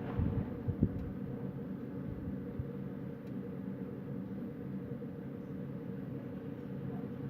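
Wind buffeting the microphone at night: a steady low rumble with a few short thumps in the first second, over a low steady hum.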